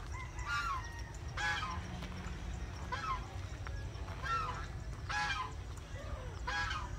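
Domestic fowl honking over and over, six short calls about a second apart, several dropping in pitch at the end, over a steady low rumble.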